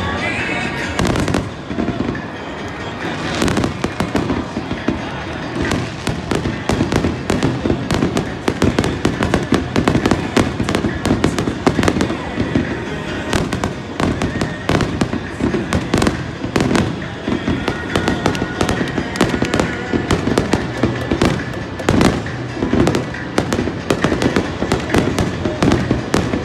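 Fireworks going off in rapid succession, a dense run of sharp bangs and crackles several times a second, over music.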